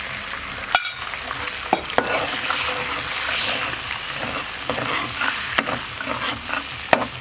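Beaten eggs sizzling in hot oil in a pan while being stirred, with a few sharp clicks of the spatula against the pan.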